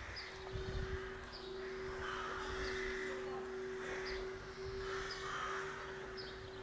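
Crows cawing several times, harsh calls about a second apart, with small birds chirping briefly and a steady low hum underneath.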